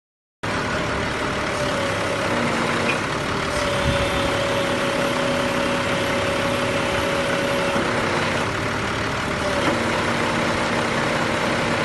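Truck engine running while the hydraulic pump of a Tadano Z300 loader crane whines steadily as the repaired outrigger is worked. The whine steps in pitch a few times as the load changes.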